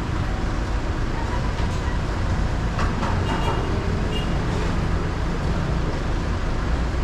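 Yamaha Ténéré 700 motorcycle's parallel-twin engine running at a steady speed under heavy road and wind noise, with a few short high tones about three seconds in.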